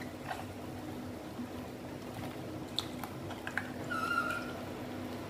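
Pot of sinigang broth simmering on a stove with eggplant and okra just added: a steady low hum with faint liquid sounds and a few light clicks, and a short high squeak about four seconds in.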